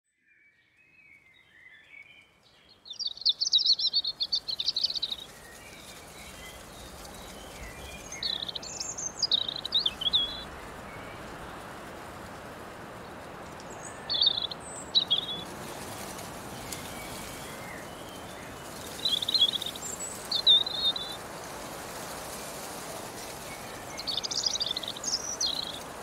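A songbird singing short, high-pitched phrases about every five seconds over a steady, soft meadow breeze hiss. The ambience fades in over the first few seconds.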